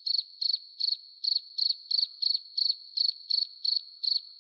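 Insects calling: a steady high-pitched trill with louder pulsed chirps repeating evenly, about three a second.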